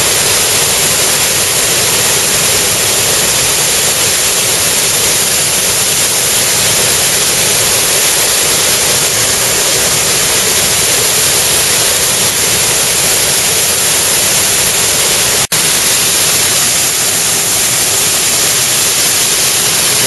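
Waterfall cascading over rock ledges: loud, steady rushing of falling water, with a momentary cut-out about fifteen seconds in.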